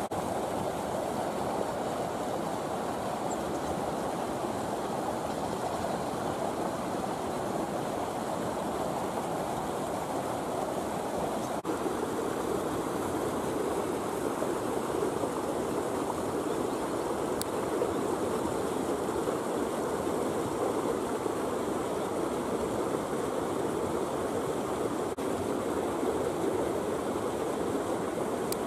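Steady rushing outdoor noise with no distinct events, its pitch settling slightly lower about twelve seconds in.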